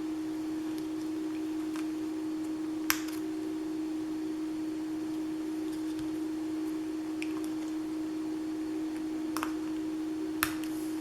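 A steady low electrical hum, with a few short sharp clicks, about three seconds in and twice near the end, from small enamel dot stickers being peeled off their backing and pressed onto a paper layout.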